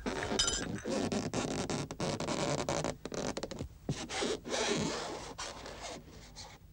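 Scratchy rubbing and scraping in quick, irregular strokes, with a short squeak about half a second in; it fades near the end.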